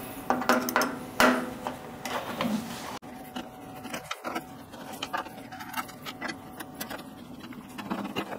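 Scattered light metallic clicks and ticks of a 3 mm Allen key being fitted into and turning the small screws on a stainless steel espresso machine's top panel.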